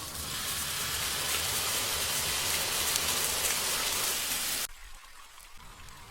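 Dense, steady hiss with fine crackle through it, cutting off suddenly about four and a half seconds in to a quieter background.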